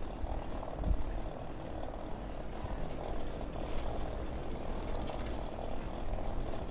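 Bicycle rolling over brick paving, giving a steady rumble, with a single low bump about a second in.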